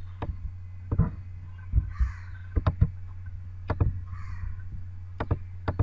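Computer mouse clicking, single clicks and quick double clicks, over a steady low hum; two short noisy sounds come about two seconds and four seconds in.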